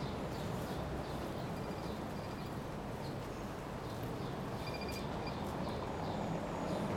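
City street ambience: a steady wash of traffic and pedestrian noise, with faint quick series of high chirps several times over it.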